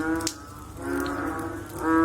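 Frogs calling after rain: short, low, moaning croaks with a cow-like tone, repeating about once a second, over a steady wet background hiss. A single sharp drip or tick sounds about a quarter second in.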